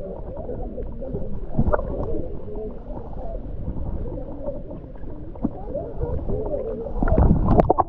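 Muffled underwater sound picked up by a camera held beneath the surface of a spring pool: a low, warbling wash with scattered knocks, and a louder flurry of knocks about seven seconds in.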